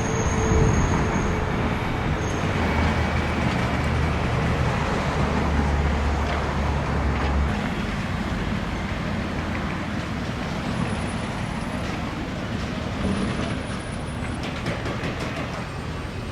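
Road traffic noise: a steady rush of vehicle engine and tyre noise with a low hum. The hum is strongest in the first half, and the sound eases off gradually after about seven seconds.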